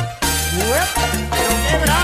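Salsa music: the band drops out for a moment just after the start, then comes back in with heavy bass notes and rising pitch slides.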